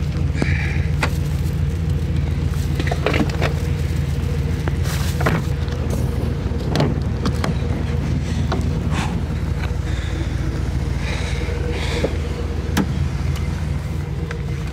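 Pickup truck engine idling steadily, with scattered knocks and clicks of gear being handled.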